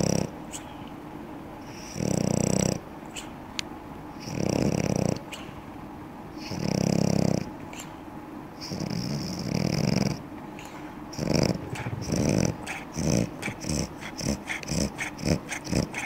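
A sleeping flat-faced dog snoring, one snore about every two seconds, each lasting under a second. About two-thirds of the way in the snores turn into short, quick snorts, about two a second.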